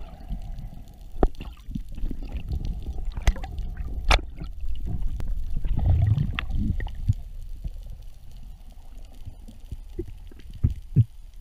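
Underwater sound heard by a submerged camera: a low, muffled wash of moving water with scattered sharp clicks and knocks. The wash swells about six seconds in, and two clicks come close together near the end.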